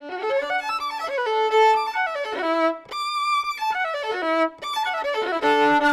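Solo violin bowing a passage of quick rising and falling runs, with a lower note held beneath parts of it and a high note held briefly about halfway through.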